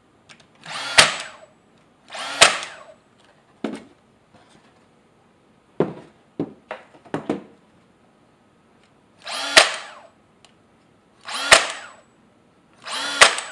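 DeWalt cordless brad nailer firing inch-and-a-half brads into a wooden box. Each shot is a short rising motor whir that ends in a sharp crack. There are two shots in the first three seconds and three more in the last four, with a few light knocks of wood being handled in between.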